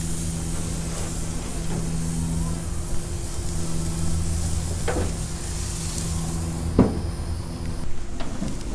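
Pompano fillets sizzling on a hot gas grill grate over a steady low hum. There is a light knock about five seconds in, and near the end a louder bang as the grill lid is shut.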